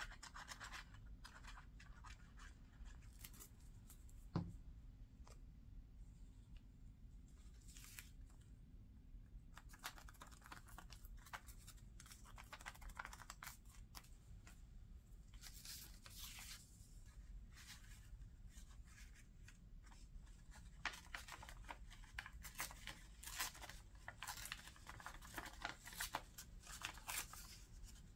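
Quiet rustling, rubbing and scratching of paper scraps and tags being handled and pressed down by hand, with one light knock about four seconds in and a low steady hum underneath.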